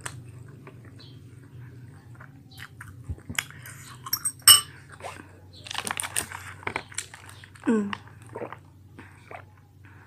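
Close-up chewing and biting of fried pempek fish cakes, with small mouth clicks throughout. A fork clinks sharply against the cut-glass bowl about four and a half seconds in, over a low steady hum.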